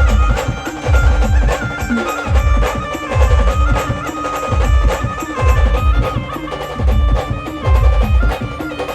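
Traditional Adivasi band music: a reedy, stepping melody over a steady drone, with heavy bass drum beats roughly every second.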